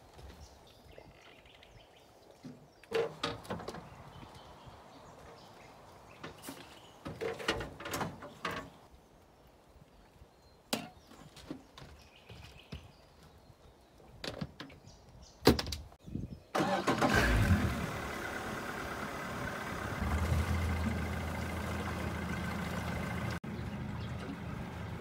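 Scattered knocks and clunks of gear being handled on an aluminium boat hull, then about two-thirds of the way in a boat's outboard motor starts with a loud burst and settles into steady running.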